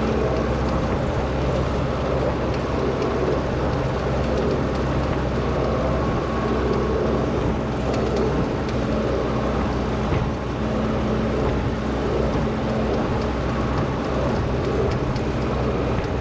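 Engine of a 1963 Volvo LM225 wheel loader running steadily under a constant load, with a brief small dip in level about ten seconds in.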